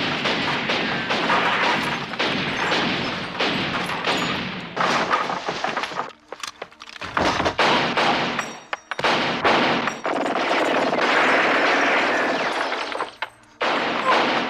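Film shootout soundtrack: rapid, near-continuous gunfire with bullet impacts, broken by short lulls about six to nine seconds in and again shortly before the end.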